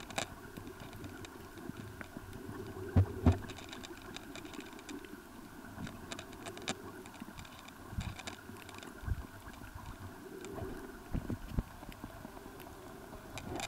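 Underwater sound picked up by a submerged camera: a steady faint hum with scattered sharp clicks, and two louder dull knocks about three seconds in.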